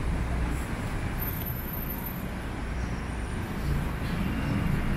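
Steady city street traffic noise: a low rumble of vehicle engines with a general noisy haze.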